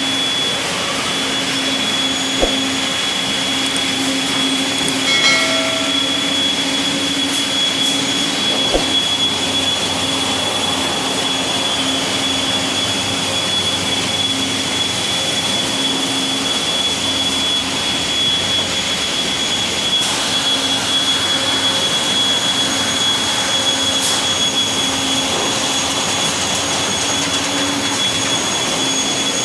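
Factory machinery running: a steady, loud mechanical din with a constant high whine and a low hum, broken by a couple of sharp clicks and a brief pitched squeak or beep about five seconds in.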